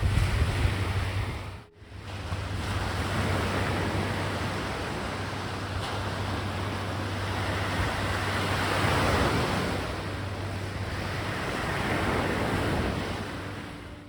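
Sea waves breaking and washing up a beach, with wind on the microphone. The surf swells louder near the middle and again near the end, and the sound drops out briefly just under two seconds in.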